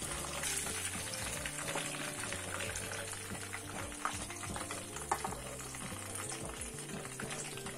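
Hot oil sizzling steadily in a kadai as deep-fried chicken leg pieces are lifted out with a perforated steel skimmer, with a couple of sharp metal clinks about four and five seconds in.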